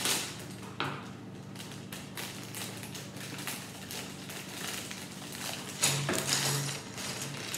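A clear plastic bag of Lego pieces crinkling as it is torn open and handled, with the small plastic bricks rattling inside. The crinkling and rattling grow louder about six seconds in as the bag is shaken out.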